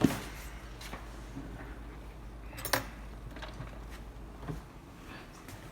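Small hard clicks and clinks of tools and parts being handled on a workbench, a sharp one at the start and another just under three seconds in, over a low hum that drops away near the end.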